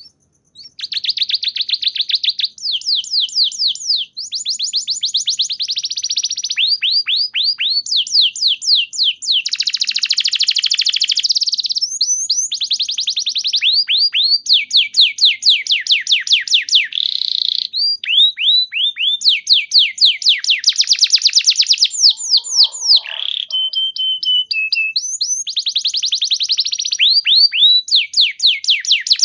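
Domestic canary singing: fast trills of repeated down-sweeping notes, switching from one trill to the next every second or two. About three-quarters of the way through there is a short held whistled note.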